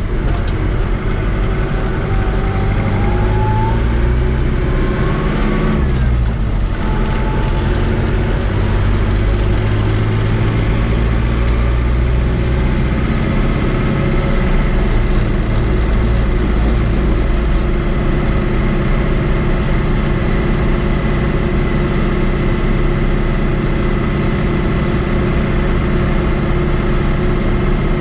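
Fiat 80-90 DT tractor's diesel engine running steadily at road speed, heard from inside the cab, with a brief shift in pitch about six seconds in.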